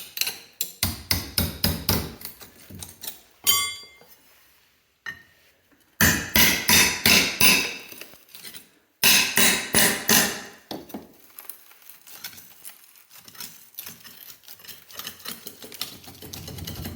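Hammering on old fireplace bricks to knock them loose, in three bursts of rapid blows at about four a second. The loudest bursts come in the middle, with lighter scattered knocks and clinks of brick and debris between them.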